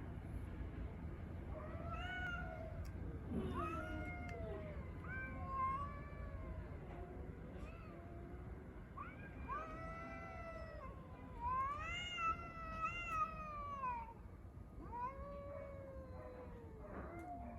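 Cats yowling in a string of long, drawn-out calls that rise and fall in pitch, some overlapping: the caterwauling of street cats squaring up to fight.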